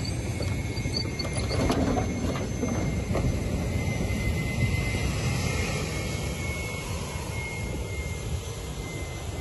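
T-80BVM tank's gas turbine engine running as the tank drives by: a steady whine over a low rumble, with a few clanks about two seconds in.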